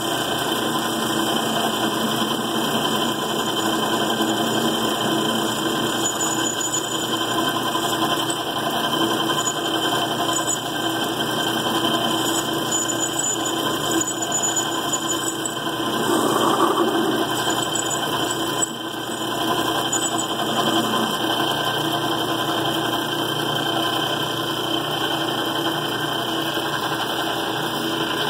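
Metal lathe running with a spring pass under way: a finishing cut taken again at the same depth to clean up what the tool left from deflection. Its motor and gear train make a steady mechanical whir, with a louder stretch about two-thirds through and a sharp click just after it.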